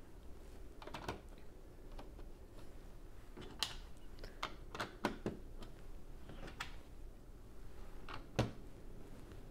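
Plastic Lego bricks clicking and tapping as they are handled and pressed onto a model building: a scatter of separate sharp clicks, the loudest about eight and a half seconds in.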